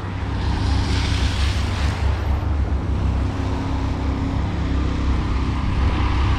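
Traffic on a wet street: a steady low rumble, with a swell of tyre hiss from a passing car about a second in.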